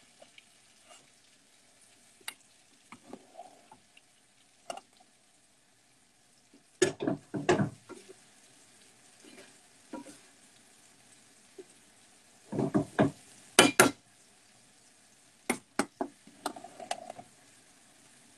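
A metal slotted spoon clanking and scraping against a saucepan and a frying pan in three short bursts, over a faint sizzle of gnocchi frying in the pan.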